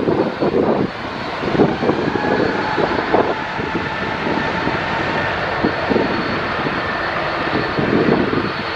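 Jet airliner engines running with a steady rushing roar and a faint high whine. Irregular gusts of wind buffet the microphone over it.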